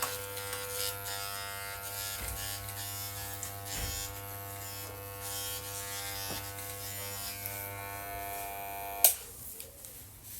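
A small electric appliance buzzing steadily with an even hum, switched off with a sharp click about nine seconds in.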